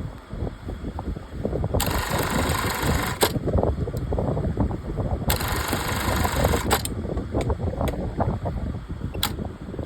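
Industrial single-needle lockstitch sewing machine running, a steady low hum with rapid clicking. A bright hiss comes in twice, about two and five seconds in, each time for about a second and a half.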